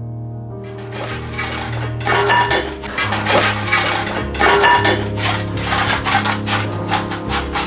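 Metal cutlery and kitchenware clinking and clattering in quick, irregular knocks as a kitchen drawer is rummaged through, starting about a second in, over background music with held bass notes.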